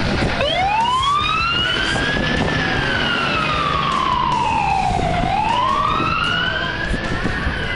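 Fire rescue truck's siren wailing as it pulls away: the pitch climbs from low to high for about two seconds, slides down for nearly three, then climbs and falls again, over a steady low rumble.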